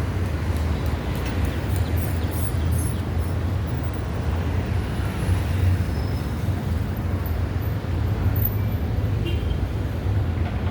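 Steady street traffic noise: a low, even rumble of passing vehicles.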